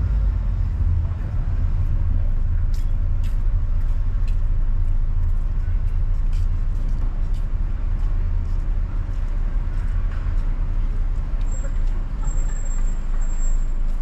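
Steady low rumble of a car driving through city traffic, with scattered faint clicks. A thin high whine sounds for about two seconds near the end.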